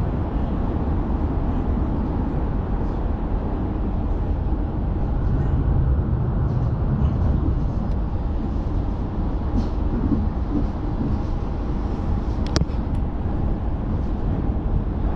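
Moving passenger train heard from inside the carriage: a steady low rumble of wheels on track. A single sharp click about three-quarters of the way through.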